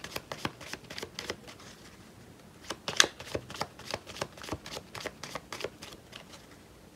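A small deck of Petit Lenormand cards being shuffled by hand: a quick run of crisp card snaps and flicks, the sharpest about three seconds in, thinning out near the end.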